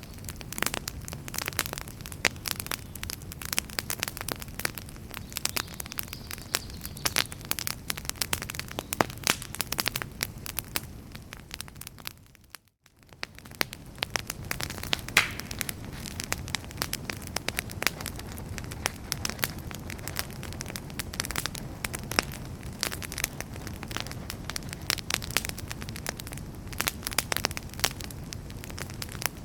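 Wood fire in a fireplace crackling and popping irregularly over a low steady rush of flame. The sound fades out briefly about halfway through and then comes back.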